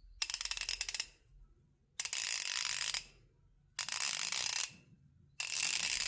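Well-used Craftsman V-Series 1/2-inch drive ratchet being worked back and forth, giving four bursts of rapid pawl clicking with short pauses between them.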